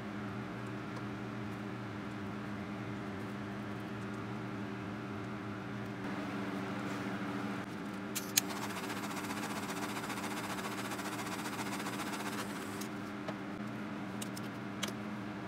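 Small electric motor of a tumbler cup turner humming steadily as it spins the cup. A sharp click comes a little past the middle, followed by a few seconds of soft hiss, with light clicks near the end.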